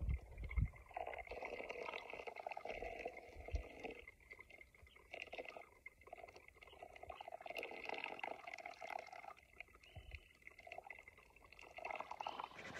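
Water poured in a thin stream onto coffee grounds in the paper filter of a drip coffee maker's basket, splashing and trickling unevenly with a couple of short breaks. A couple of low bumps right at the start.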